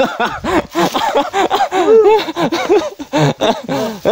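People's voices calling and exclaiming, one short loud cry after another, without clear words.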